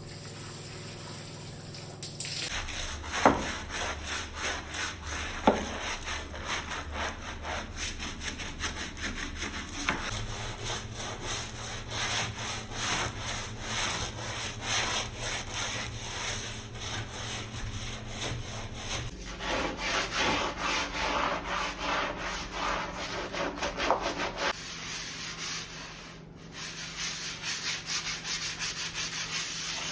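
Repeated rhythmic scraping and rubbing strokes, several a second, changing character abruptly at a few cuts. There are two sharp knocks, about three and five and a half seconds in.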